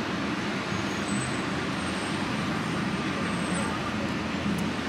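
Steady background noise of road traffic, an even rumble with no distinct events.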